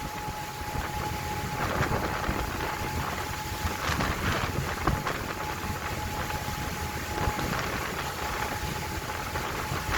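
Boat under way in a rough sea: a low engine rumble under wind buffeting the microphone, with surges of rushing, splashing water about two seconds in, around four seconds and again near the end. A faint steady whine runs underneath.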